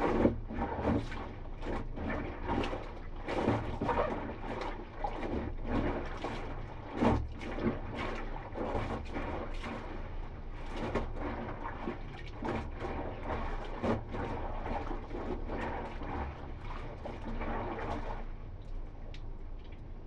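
Wet clothes and a blanket being lifted and plunged by hand in a plastic basin of water: irregular sloshing and splashing, with water streaming off the raised fabric. The splashing eases off for the last couple of seconds.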